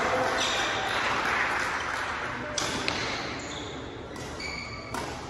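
Indoor badminton hall sounds: background chatter, a few sharp taps of rackets on shuttlecocks, and short high squeaks of sneakers on the hardwood court, with a racket striking a shuttlecock near the end.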